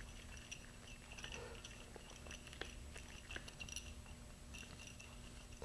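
Faint, scattered small clicks and crackles of gloved hands handling a small metal washer and bolt.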